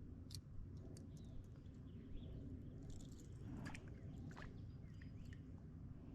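Quiet outdoor background by a pond: a steady low rumble with scattered short high chirps and clicks, most of them bunched about three to four and a half seconds in.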